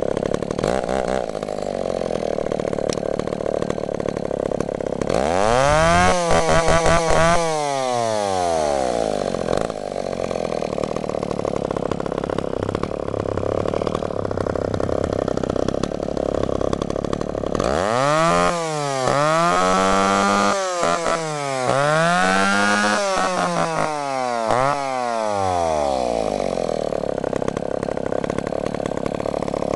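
Echo CS-302S two-stroke chainsaw idling steadily, revved up once about five seconds in and let fall back to idle, then blipped up and down about four times in quick succession before settling back to idle.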